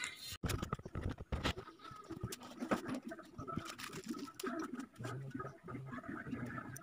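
A phone camera being handled and set down on a concrete floor: scattered knocks, rubs and light taps.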